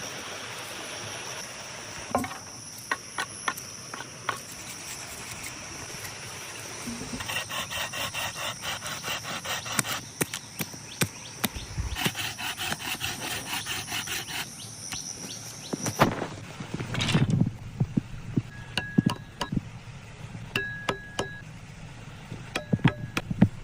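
Rhythmic scraping or sawing strokes on wood, about four a second, in two runs, over a steady high insect-like drone. Knocks and taps are scattered through. The drone cuts off suddenly about two-thirds of the way in, and heavier thumps and clatter of handling follow.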